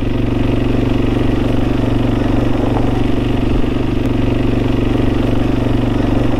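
Motorcycle engine running at a steady, unchanging pitch.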